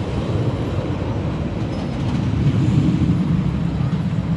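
Storm Chaser's RMC hybrid coaster train rumbling along its steel track, getting louder about two and a half seconds in.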